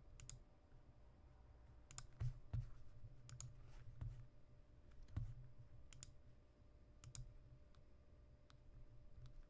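Faint, irregular clicking at a computer, about a dozen clicks, over a steady low hum.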